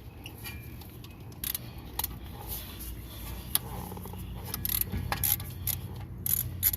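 Irregular metallic clicks and clinks of tools and parts being handled during rear hub work, a few sharper than the rest, over a low steady hum.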